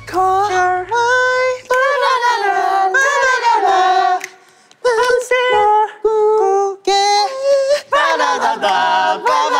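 Young men singing a pop chorus unaccompanied, passing the melody along one syllable at a time, each singer taking a short held note in turn. The singing drops out briefly a little before halfway, then carries on.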